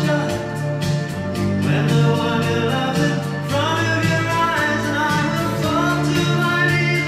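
A song played from a vinyl record on a Michell GyroDec turntable: a singing voice over instruments with a steady beat.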